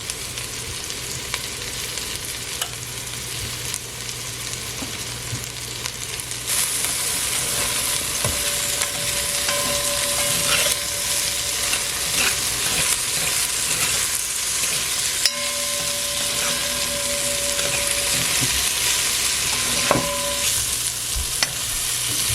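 Sliced okra sizzling as it fries in oil in a pot, stirred with a spoon that scrapes the pot now and then. The sizzle gets louder about six seconds in.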